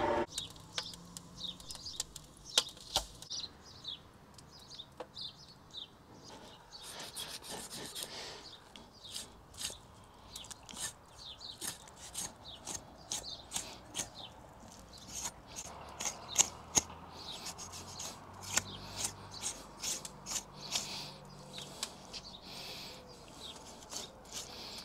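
A knife skinning a bull's head: irregular short scrapes and ticks as the blade cuts and peels the hide from the flesh, with a few sharper knocks.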